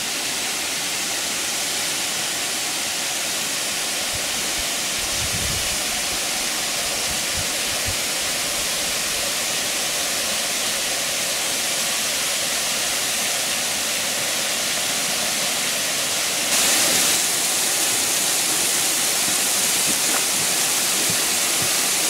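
Steady rush of a thin waterfall spilling down a rock face and splashing at its foot, growing suddenly louder about three-quarters of the way through.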